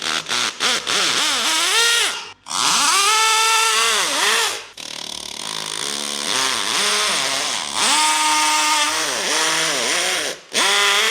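Cordless drill-driver trying to drill into a wall, its motor whining up and down in pitch over several long runs with short stops about two and a half and five seconds in. It is not getting through: the job calls for a hammer drill.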